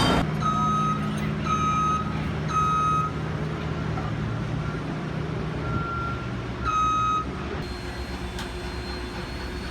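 A heavy vehicle's reversing alarm beeping about once a second over its running engine. The beeps stop about three-quarters of the way through.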